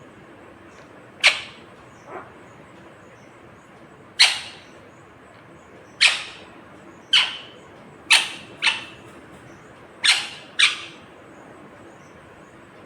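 Indian ringneck parakeet giving about eight short, sharp screeching calls at irregular intervals, some in quick pairs.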